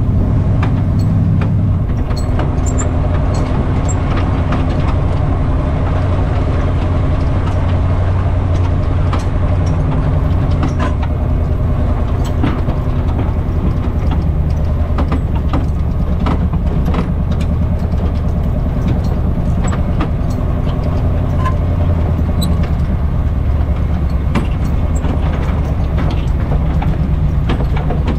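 Off-road wrecker's engine running steadily under load as it tows a disabled lifted pickup on its hook, with frequent clanks and rattles from the tow chains and loose gear in the wrecker's bed.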